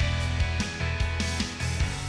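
Background music: an upbeat guitar track with a steady drum beat.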